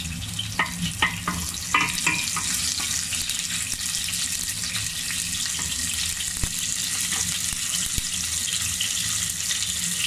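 Onion pieces and fenugreek seeds sizzling steadily in hot oil in a pot, with a few knocks of a wooden spoon stirring them in the first two seconds.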